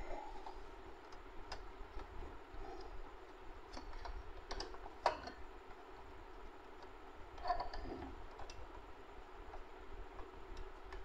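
Scattered light plastic clicks and knocks as an Epson ink-tank printer's print-head carriage is handled and fitted back into place, the sharpest click about five seconds in and another knock about seven and a half seconds in, over a faint steady hum.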